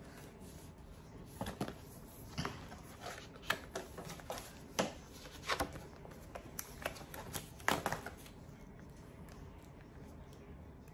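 Hands handling unboxing packaging and paper: a run of scattered clicks, taps and rustles that dies down after about eight seconds.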